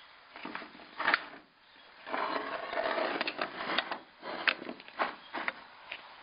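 Handling noise from the pneumatic stapler and nail pinner being picked up and turned over: a sharp knock about a second in, a stretch of rustling and scraping, then several sharp clicks and knocks.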